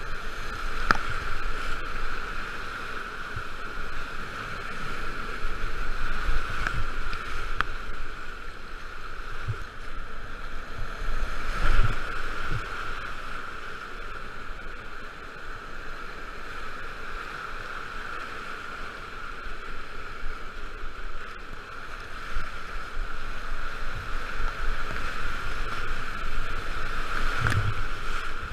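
Whitewater rapids rushing and churning around a kayak at close range, a steady noisy roar that swells and eases as the boat runs through the waves, with a few sharp splashes and knocks.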